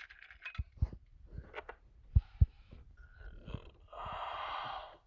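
Scattered low knocks and taps of tools and parts while steering column bolts are fitted under a car's dashboard, with a steady rasp lasting about a second near the end.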